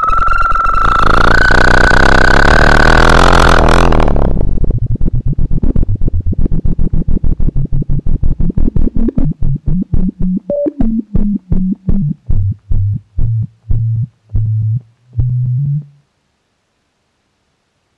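Trombosonic digital instrument playing its Max 6 synthesizer sound: a loud, bright, sustained high tone for about four seconds, then a run of short pulsing low notes that slow down and sink in pitch, the last one held a little longer before the sound stops about two seconds before the end.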